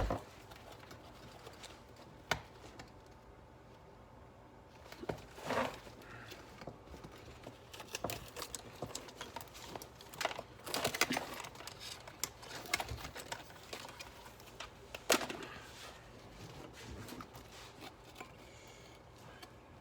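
Scattered rustling and crinkling with a few sharp clicks as a motorcycle seat's foam is handled during its teardown.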